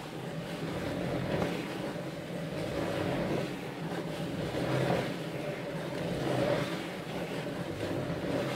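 Wooden spirograph drawing machine running as its discs and linkage arm turn to move the pen. A steady mechanical hum that swells and fades every second or two.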